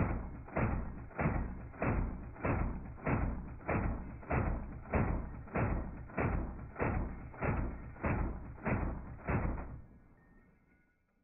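M249 light machine gun firing a long burst, heard slowed down with the slow-motion picture: about sixteen deep, drawn-out booms evenly spaced, a little over one and a half a second. The shots stop near the end and the sound dies away.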